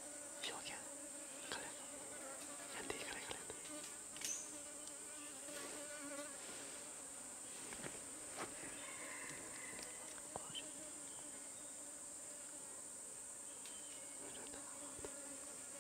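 Steady high-pitched insect chorus, with a lower, fainter insect buzz beneath it and scattered light clicks and rustles.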